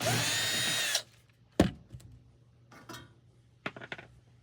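Cordless drill-driver spinning for about a second as it backs out a furnace cover screw, its motor whine rising and then falling in pitch. Then comes a sharp click, followed by a few lighter taps.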